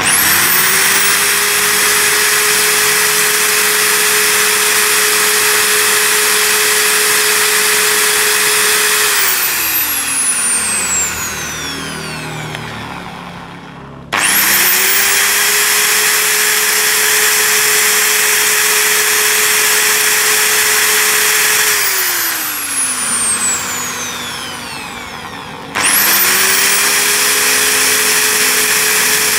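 Handheld electric rotary grinder with a wire brush running at full speed on a Suzuki Smash 110 cylinder head: a steady whine with metallic scraping as carbon is cleaned off the valve and combustion chamber. It is switched off about nine seconds in and again about 22 seconds in, each time coasting down with a falling whine over several seconds, then restarting with a quick rising whine.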